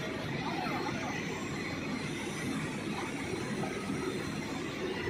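Backhoe loader's diesel engine running steadily under load while its hydraulic arm holds and shifts a full bucket of earth, with a faint steady whine over the engine.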